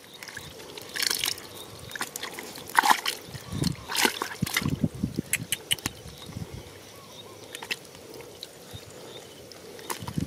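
Shallow muddy water sloshing and splashing in short, irregular bursts as it is stirred, typical of hand-fishing for catfish in a drying pool.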